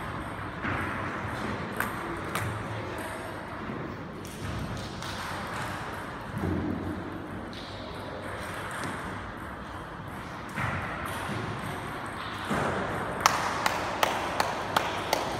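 Table tennis ball clicking in a quick run of sharp ticks near the end, about two a second, over steady sports-hall noise.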